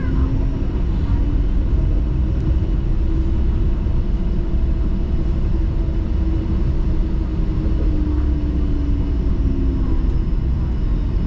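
Steady low rumble of a TTC Flexity Outlook streetcar running along its track, heard from inside the car, with a faint hum that slowly rises and falls in pitch as it moves.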